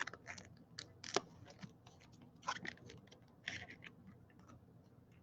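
Trading cards being handled: glossy card stock sliding and rustling against other cards in short bouts, with a sharp tap about a second in.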